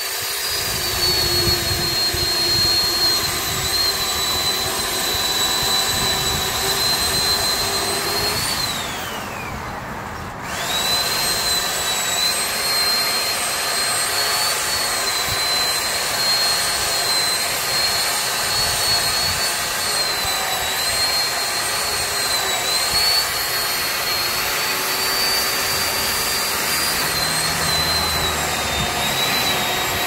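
Chainsaw running at high revs as it cuts into a spruce trunk, its pitch wavering slightly under load. About eight seconds in the revs fall away for a couple of seconds, then climb back to full speed and hold.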